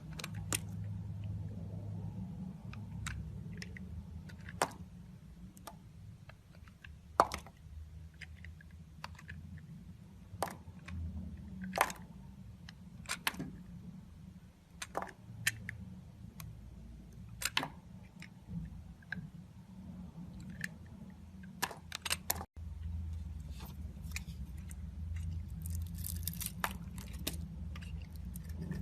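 A knife carving into a bar of soap, giving crisp cuts and crunches at irregular intervals, with a denser run of crackling near the end, over a steady low hum.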